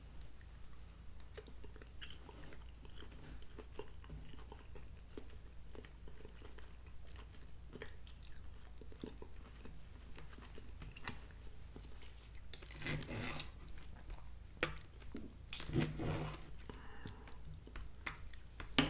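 Close-up chewing and mouth sounds of a man eating, with light clicks of a metal fork and knife against a plastic TV-dinner tray. Two louder stretches of noise come about two-thirds of the way in, a few seconds apart, and there is a sharp click right at the end.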